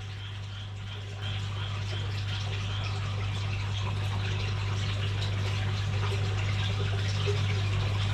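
Koi aquarium water splashing and trickling steadily from the filter return, over a steady low hum from the tank's pump; both grow louder about a second in.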